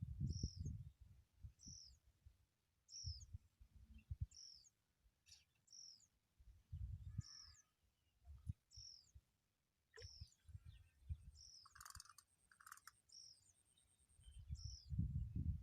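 A small bird calling, a short high chirp that falls in pitch, repeated steadily about once a second. Intermittent low muffled rumbles on the microphone come and go throughout.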